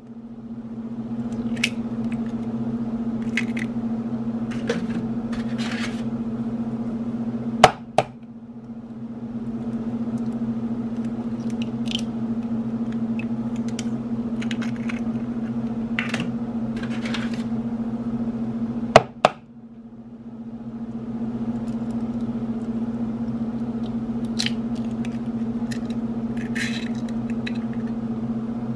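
Eggshells knocked sharply against a hard edge to crack them: a quick double knock twice, some ten seconds apart, with faint clicks and rustles of shell being pulled apart and handled between. A steady low hum runs underneath throughout.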